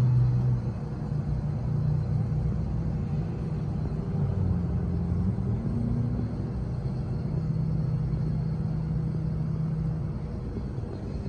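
A low, steady mechanical rumble with an engine-like hum whose pitch shifts a few times.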